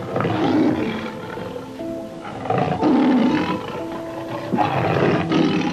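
A big cat roaring three times, each call about a second long, over background music.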